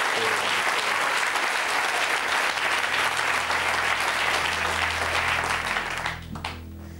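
Studio audience applauding, dying away about six seconds in, with a low steady music bed coming in underneath from about halfway.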